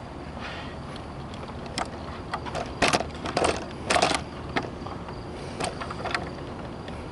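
Handling noise from the camera on its tripod being moved: a cluster of knocks and clatters, loudest about three to four seconds in, over a steady background hum.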